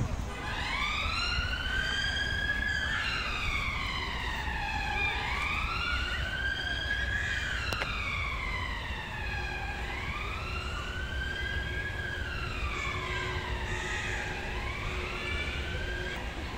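An emergency-vehicle siren sounding a slow wail, its pitch rising and falling in long sweeps about every four to five seconds.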